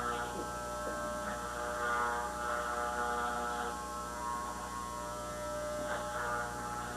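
A steady electrical hum made of a stack of evenly spaced steady tones, with a few faint brief sounds over it.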